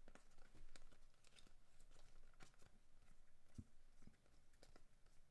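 Faint, irregular soft ticks and slides of paper trading cards being flipped one by one off a stack into the other hand.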